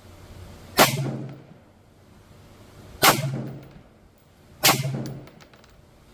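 Three centerfire rifle shots, about two and a half seconds and then a second and a half apart, each trailing off in a ringing echo.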